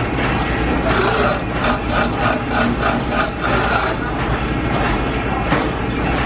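Steady hum of factory machinery around a spring-setting machine, with a sharp metallic click near the end as tension springs are unhooked from the machine's hooks.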